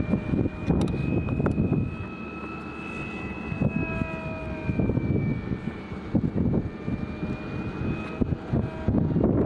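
Radio-controlled model plane flying, its motor and propeller a thin high whine that slowly rises and falls in pitch as it moves around the sky. Gusty wind buffets the microphone underneath.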